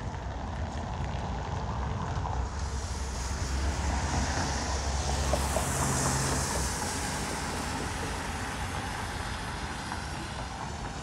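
A road vehicle passing by on a wet road. It grows louder to a peak about five to six seconds in, with a low hum and a tyre hiss, then fades, over steady background traffic.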